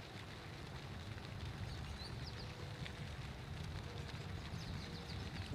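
Quiet outdoor ambience: a steady low rumble with faint, brief bird chirps a couple of seconds in and again near the end.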